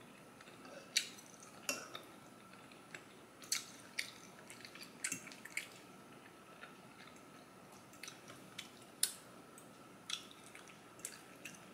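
Close, wet mouth sounds of someone chewing chewy spicy Korean rice cakes (tteokbokki): faint, irregular smacking clicks.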